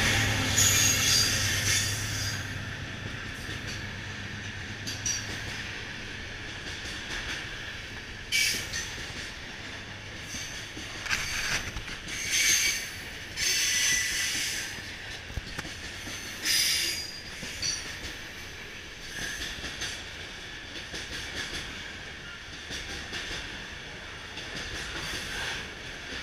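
A diesel locomotive's engine fades off as it passes in the first couple of seconds. Then freight wagons roll steadily past close by, with several short, high wheel squeals in the middle stretch.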